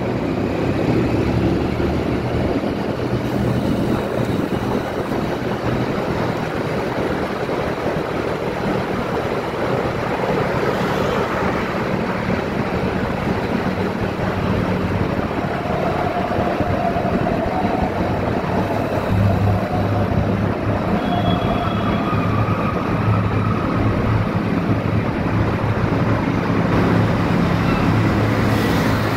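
Steady engine hum with road and wind noise from a vehicle driving through a concrete road tunnel.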